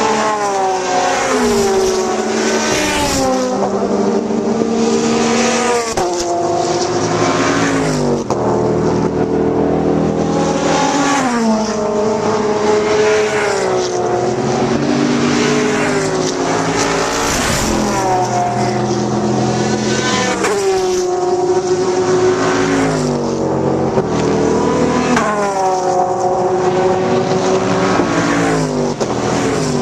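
Sports-prototype and GT race cars passing one after another at racing speed. Their engine notes repeatedly sweep down and climb back up in pitch as each car goes by and shifts gear.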